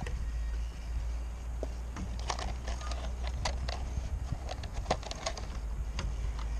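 Handling noise from a GAUI X3 RC helicopter: irregular sharp plastic clicks and taps as the canopy and frame are gripped and the model is lifted, over a steady low rumble.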